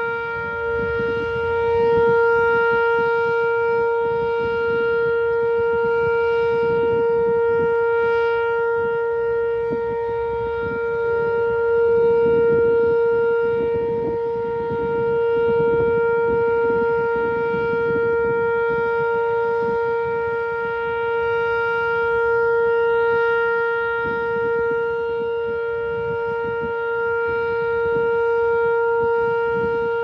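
Whelen WPS 2906 electronic outdoor warning siren sounding a steady single-pitch tone during a tornado siren test, its loudness swelling and fading slowly as the rotating siren head turns.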